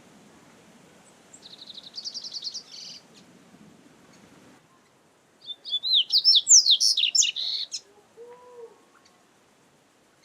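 Double-collared seedeater (coleiro) singing: a fast trill of quickly repeated high notes about a second and a half in, then a louder, more varied phrase of quick rising and falling notes from about five and a half to eight seconds in.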